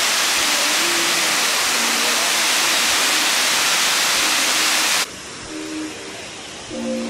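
Waterfall: the loud, steady rush of water pouring over a rock ledge into a pool. It cuts off abruptly about five seconds in, leaving much quieter sound with background music.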